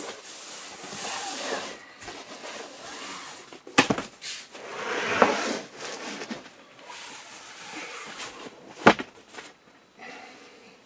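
Handling noises: rustling and scraping, with two sharp knocks about four and nine seconds in.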